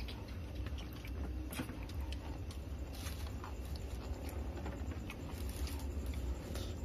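Close-up eating sounds from a man eating with his hands: chewing and small irregular clicks and rustles of fingers and food, over a steady low hum.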